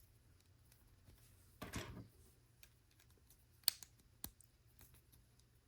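Quiet handling of plastic LEGO bricks: a brief soft rustle about a second and a half in, then two sharp clicks a little over half a second apart as pieces are pressed onto the build.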